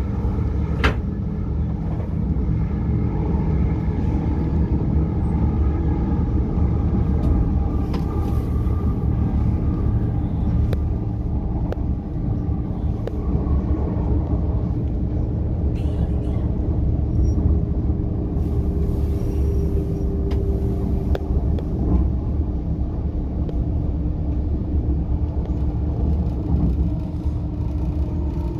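Southeastern Class 395 electric train running at speed, heard from inside the carriage: a steady low rumble with faint steady tones and occasional sharp clicks.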